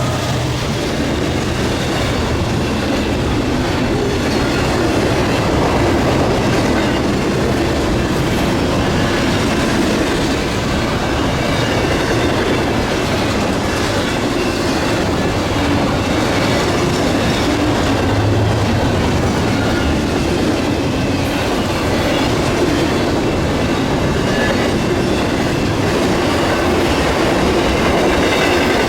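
Union Pacific intermodal freight train rolling past at speed: a steady, loud rumble of steel wheels on rail with clickety-clack over the rail joints and a faint high wheel squeal.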